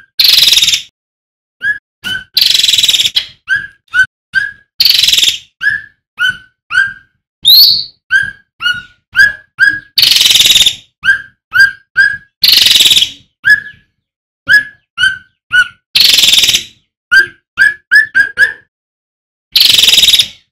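Male cucak ranting (cucak rante) songbird calling: a rapid string of short, clear, upward-flicking notes, broken up by loud, harsh, rasping bursts.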